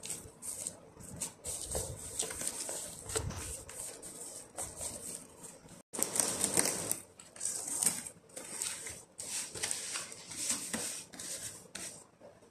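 A plastic-gloved hand pressing and turning a ball of dough in a plastic bowl, with soft thumps and rubbing. After a cut about six seconds in, cling film crinkles and rustles as it is stretched over the bowl.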